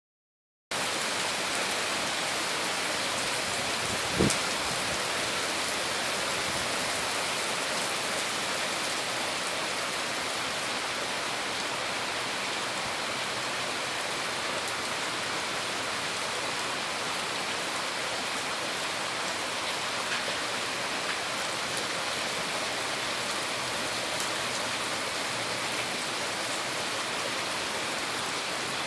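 Steady rainfall, an even hiss of rain on surfaces that starts just under a second in. One louder single thump comes about four seconds in.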